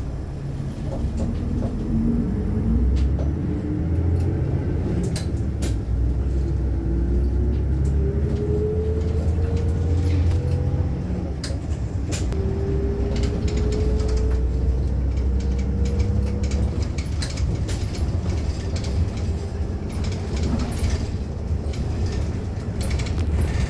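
Interior of a city bus on the move: steady low engine rumble with a whine that rises slowly as the bus picks up speed, twice over, and scattered small rattles and clicks from the cabin fittings.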